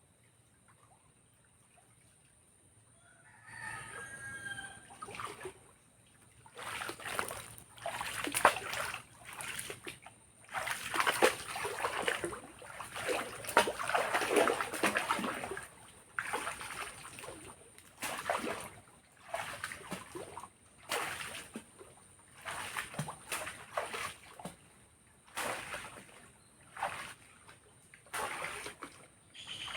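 A rooster crows once, a few seconds in, then water splashes and sloshes in repeated bursts, one every second or two.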